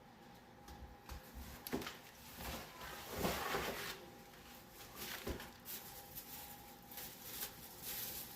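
Packaging being handled during an unboxing: irregular rustling of wrapping, loudest about three seconds in, with a couple of light knocks.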